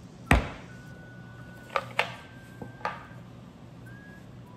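Plastic snap-lock latches on a glass food container's lid being unclipped: a loud sharp click about a third of a second in, then three smaller clicks over the next few seconds.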